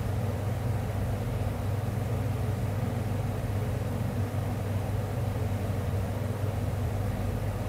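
A steady, unchanging low hum with a light hiss above it.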